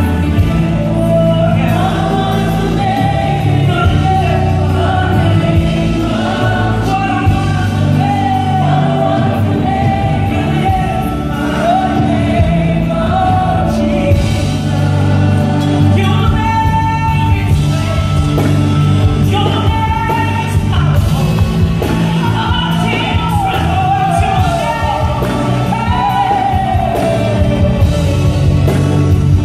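Live amplified gospel worship music: women's voices singing a melody into microphones over a band accompaniment with steady sustained bass.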